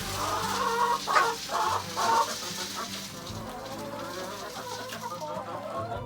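Chickens clucking, with a few louder calls in the first two or three seconds, then softer steady clucking.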